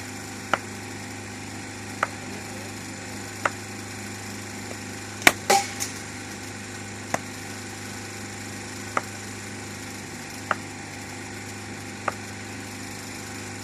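Sharp, short knocks repeating roughly every one and a half to two seconds, with a louder group of two or three knocks about five seconds in, over a steady low hum.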